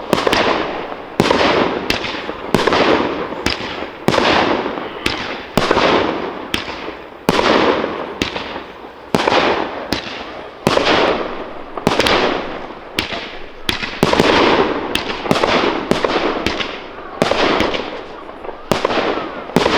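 Fireworks display: firework shells bursting with loud bangs about once a second, each trailing off in a long rolling echo.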